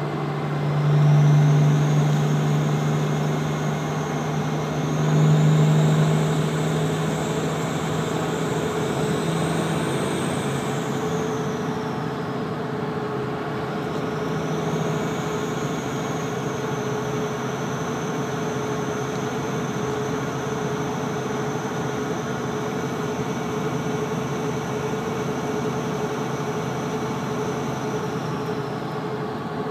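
The third-gen turbocharger on a 12-valve Cummins 5.9 inline-six diesel whistling as the truck drives, heard from inside the cab with the windows up, over the steady drone of the engine. The whistle climbs in pitch, drops away about twelve seconds in, then spools up again and holds steady before fading near the end.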